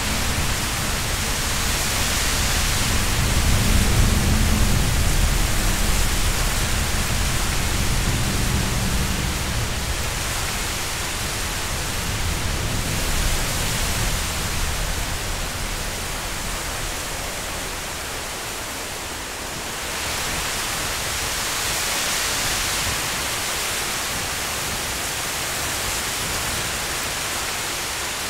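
Wind gusting and rushing through trees and leaves, a steady hiss. A heavy low rumble in the first ten seconds fades away, and the rush swells again about twenty seconds in.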